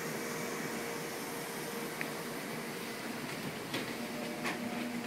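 Steady ventilation hum of a building's air handling, with a couple of light knocks, like footsteps, near the end.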